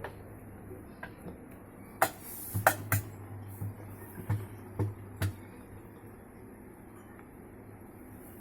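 LG top-load washing machine starting its spin cycle: a run of sharp clicks and knocks with a low motor hum under them, from about two to five seconds in, then it settles to a faint steady background.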